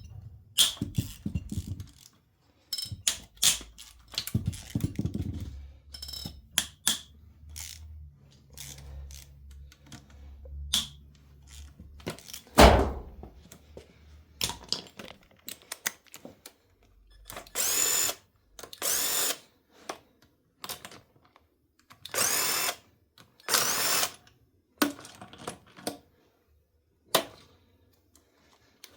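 A power tool running in four short bursts of about a second each, with a rising whine, loosening the connecting-rod cap bolts of a 2.2 L Ecotec engine. Scattered clicks and metal clanks of tools and parts come between the bursts, with one loud clank about twelve seconds in.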